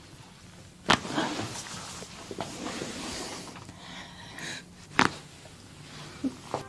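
Two sharp joint cracks from manual adjustments, about four seconds apart, with rustling of clothing and body movement between them and a couple of fainter clicks near the end.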